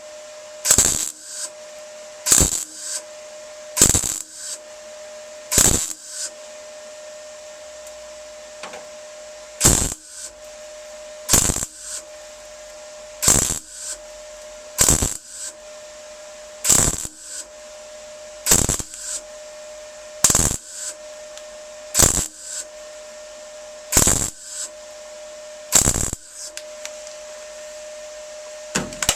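Welder laying a run of short tack welds on a steel van body panel: a brief burst about every second and a half to two seconds, about fifteen in all, with a pause of about four seconds near the middle. A steady hum runs underneath.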